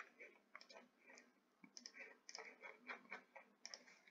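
Faint, irregular clicking of a computer keyboard as code is entered, several keystrokes a second.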